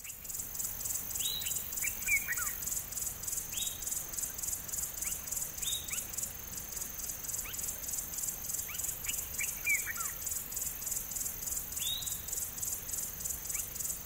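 Insects trilling in a steady, evenly pulsing high-pitched chorus, with short falling bird calls every second or two.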